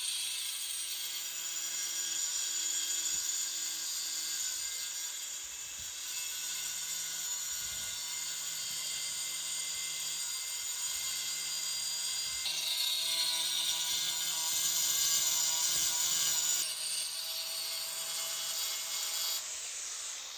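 4.5-inch angle grinder with a diamond blade cutting a 45-degree bevel into a tile edge: a steady high grinding hiss over the motor's hum, changing pitch as the blade bites in and cutting off just before the end.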